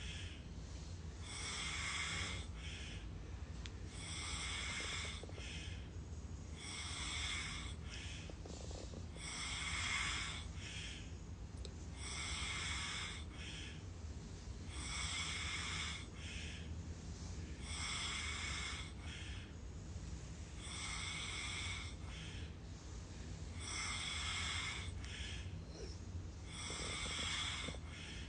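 A person snoring in slow, regular breaths, a rasping snore about every two and a half to three seconds, some of them doubled.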